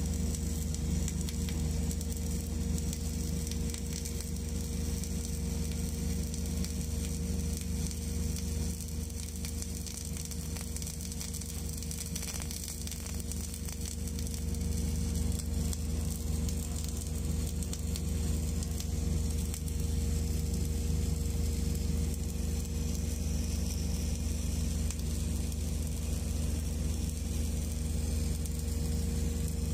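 Welding arc running steadily: a continuous hiss over a constant low hum.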